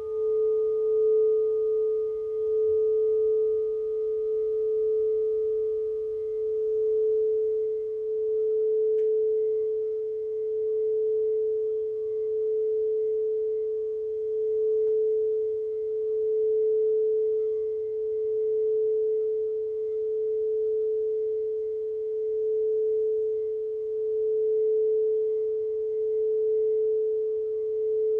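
A singing bowl sounding one sustained mid-pitched tone with faint higher overtones, swelling and fading slowly and regularly every few seconds without dying away.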